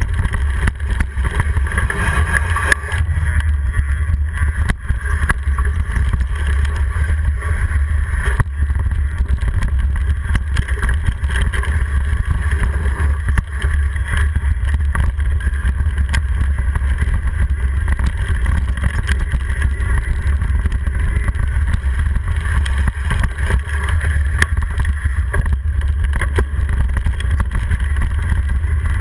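Mountain bike riding fast down a dirt singletrack, heard through a handlebar-mounted GoPro: a steady deep rumble of wind buffeting and tyres on dirt, with scattered small knocks and rattles from the bike.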